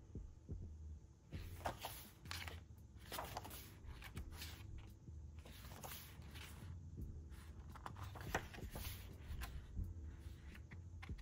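Pages of a softcover photobook being turned and smoothed by hand: irregular soft paper rustles and swishes, over a faint low hum.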